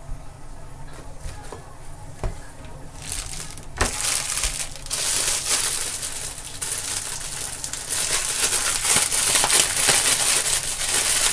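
Clear plastic food bag crinkling as it is squeezed and kneaded by hand. It starts about three seconds in and gets louder toward the end.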